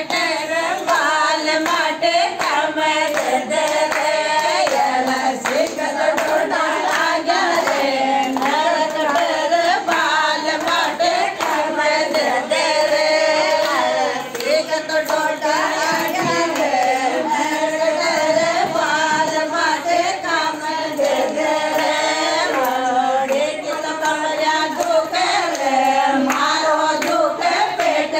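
A group of women singing a traditional wedding folk song together, with hand claps keeping time.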